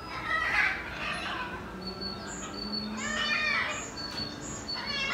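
Small birds chirping in short, high, repeated notes, with a longer wavering call about three seconds in and again at the end.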